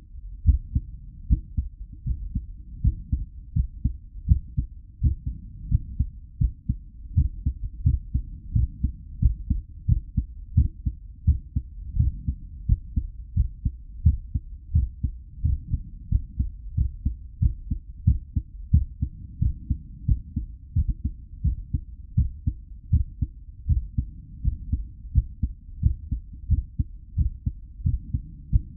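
A real human heartbeat at a medium rate: a steady, regular run of low thudding beats.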